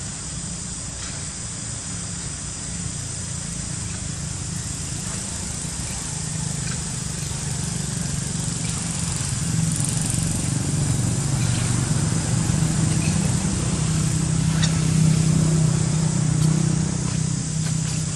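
A motor engine running steadily nearby, growing louder over several seconds and easing off near the end, over a steady high hiss.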